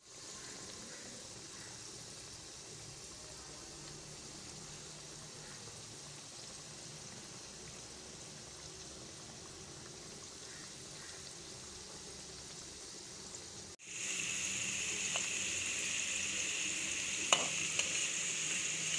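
Spinach dough twisters deep-frying in hot oil: a steady sizzle, faint at first and much louder from about fourteen seconds in, with a light metal clink of a spatula near the end.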